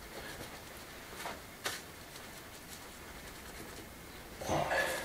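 Stones being set by gloved hands into a bed of mortar: quiet scraping and a couple of light knocks, then a louder scuff near the end.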